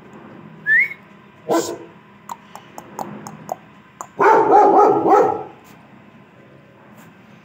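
A dog barking: one bark about a second and a half in, then a louder, longer run of barking lasting about a second, around four seconds in. A short rising whistle comes just before the first bark.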